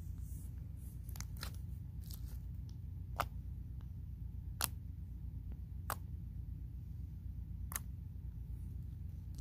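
Slime being pressed and poked by fingers, giving sharp little clicks and pops: a few soft ones at first, then four clearer ones a second or so apart, over a steady low hum.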